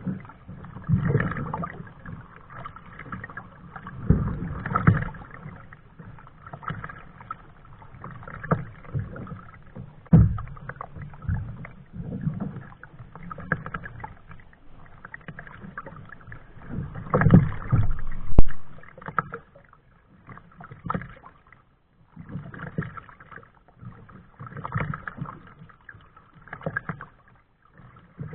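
Kayak paddling: the paddle dipping and splashing in the water, with low knocks, at uneven strokes a second or two apart, louder for a few strokes about seventeen seconds in.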